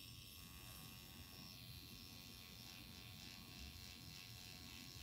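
Faint, steady buzz of a permanent-makeup tattoo pen running while its needle works along the upper lash line.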